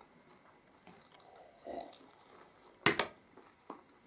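A glass tea mug set down on a ceramic saucer with a sharp clink about three seconds in, a second lighter knock right after it, amid quiet eating sounds.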